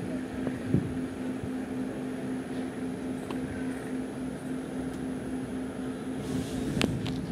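Steady hum and rumble of an Indian Railways electric intercity express train, with one constant tone running through it, a light knock about a second in and a sharp click near the end.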